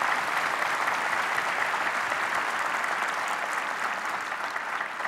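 Large audience applauding with steady, dense clapping.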